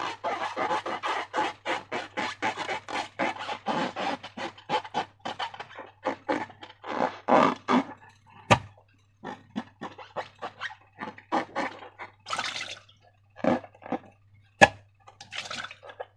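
Sticky slime being squished and worked by hand: a dense run of short, wet squelches and clicks that thins out after about six seconds, with two sharp snaps, one about halfway through and one near the end.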